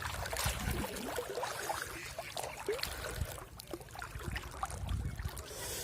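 Shallow seawater sloshing and trickling unevenly, with faint short chirps scattered through.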